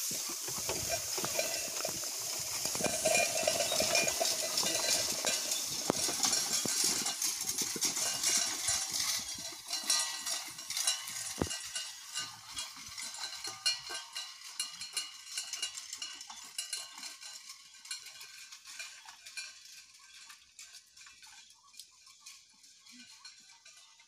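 Horse-drawn hay rake's metal tines and harness chains clinking and rattling as two horses pull it through the hay, loudest for the first several seconds and then fading steadily as it moves away.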